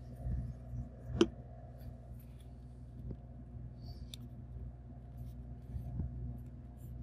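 Hands working balsa sticks, paper and a glue bottle on a tabletop: light handling ticks and rustles, with one sharp click about a second in, over a low steady hum.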